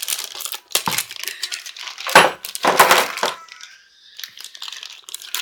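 Clear plastic bag of Beyblade parts crinkling and crackling in the hands as it is handled and opened, in irregular bursts that are loudest about two to three seconds in.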